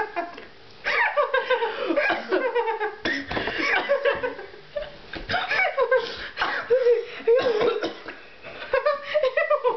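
Young people laughing hard in near-continuous high-pitched fits of giggles.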